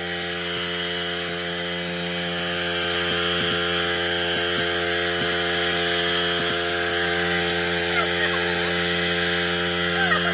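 Small gasoline pressure washer engine running steadily at constant speed, with the hiss of the water spray over it.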